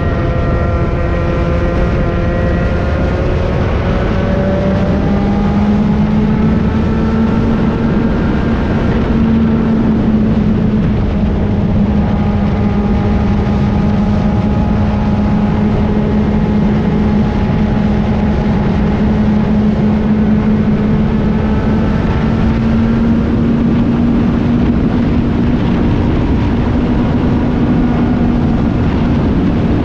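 IAME KA100 100cc two-stroke kart engine running hard at high revs on a hot lap. Its pitch climbs about four seconds in, then holds nearly steady with slight dips and rises.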